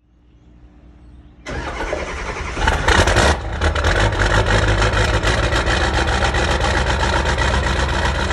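Vehicle engine starting at the exhaust pipe: it catches suddenly about a second and a half in, revs up briefly, then settles into a steady idle.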